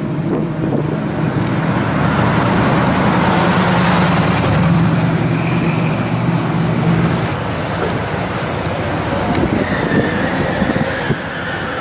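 Classic pickup truck engine running low and steady as it drives past. About seven seconds in the sound changes abruptly to the general noise of cars moving along the street.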